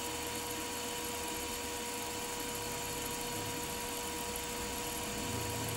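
Steady hum of a milling machine, its spindle running a wobble pin, with a constant whine and a low rumble that strengthens slightly near the end.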